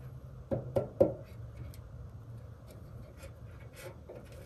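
A block of wood being fitted under a milling ladder by hand: a few knocks from about half a second to one second in, then light rubbing and faint taps.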